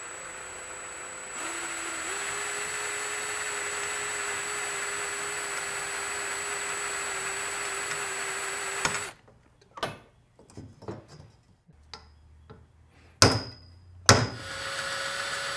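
Electric hand drill running at a steady speed while boring a center-punched hole through the Corvair shift tube's outer housing and the bronze bushing inside it. The drill cuts off suddenly about nine seconds in. A few sharp metallic knocks and clinks follow, the loudest two near the end.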